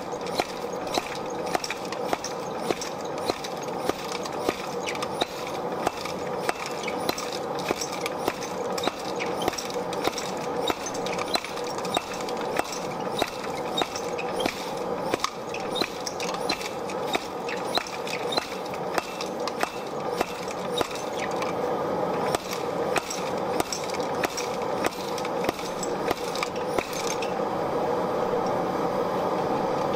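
Hammer blows on red-hot mild steel bars on an anvil, setting a forge weld, in a steady rhythm of a little more than one strike a second. Behind them is the continuous roar of a propane gas forge, which carries on alone once the blows stop near the end.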